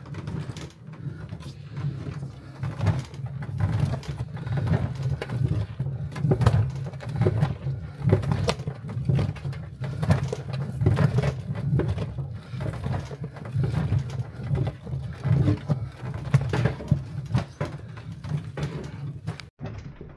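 A long wooden paddle beats and stirs a thick, sticky sugar-and-egg-white halva mass in a large metal cauldron. It makes a continuous run of low squelching strokes, with the paddle scraping against the pot's sides.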